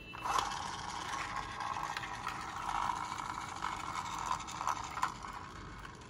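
Small toy minicar rolling down a slope, its wheels giving a steady rattle with scattered small clicks that starts just after the beginning and dies away near the end.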